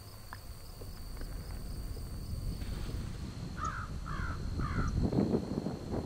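A crow cawing three times in quick succession about two-thirds of the way through, over wind rumbling on the microphone that gusts louder near the end.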